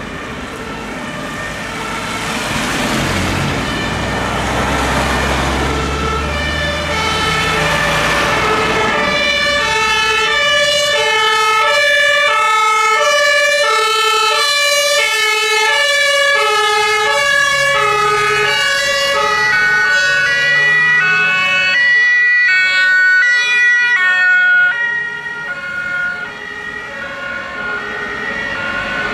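German two-tone emergency-vehicle horns (Martinshorn) sounding their alternating high and low notes, at least two of them overlapping, as vehicles on a call drive by. A vehicle engine and road noise are heard first. The horns grow louder, are loudest a little after twenty seconds in, then drop off.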